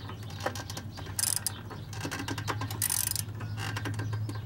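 Ratchet wrench clicking in two short bursts of rapid ticks as it is swung back and forth, tightening a go-kart's centrifugal clutch bolt, with a few single clicks and knocks of the tool between them.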